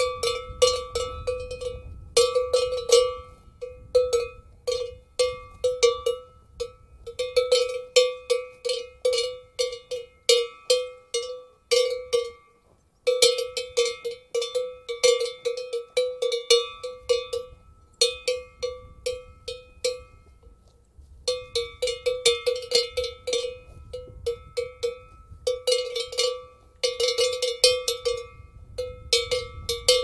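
Metal cowbell clanking in irregular bursts of quick strokes, each ringing with a clear tone. There are two short breaks, a little before halfway and about two-thirds of the way through.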